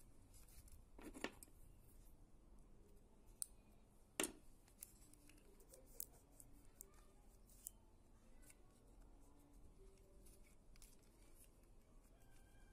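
Faint, scattered clicks and taps of a Sony compact camera's small plastic and metal parts being handled as its LCD screen and ribbon cable are pressed into the body, with the sharpest clicks about a second in and about four seconds in.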